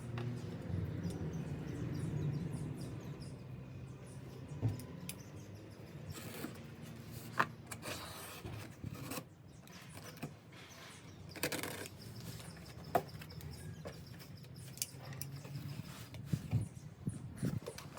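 Scattered light taps and clicks of objects being handled, over a low steady hum that is stronger in the first few seconds.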